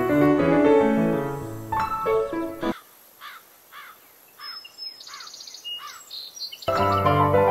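Piano music that breaks off about a third of the way in, leaving songbirds chirping: a short chirp repeated about twice a second, with higher trilling song in the middle. The piano music comes back in near the end.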